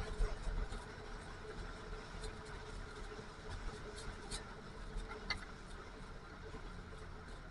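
Snowmobile engine running steadily at a low, even pitch, with a few faint clicks over it.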